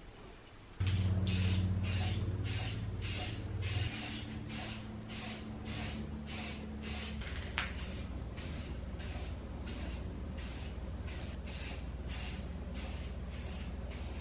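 Aerosol spray paint can hissing in short repeated bursts, about two a second, as paint is sprayed onto a small helmet, over a steady low hum.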